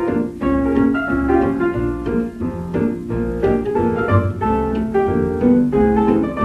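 1931 hot-jazz dance orchestra playing a fox trot from a 78 rpm record, with a steady beat and piano among the band.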